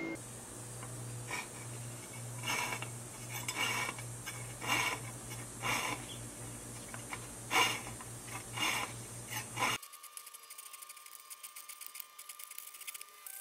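Hand jeweler's saw cutting through sheet metal, each stroke a short rasp, over a low steady hum. Near the end the sound switches abruptly to fainter, faster fine rasping.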